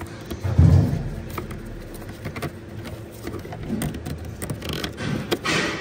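Hands working car parts at the bulkhead: a low thump about half a second in, scattered small clicks of plastic and metal fittings, and a brief rustle near the end.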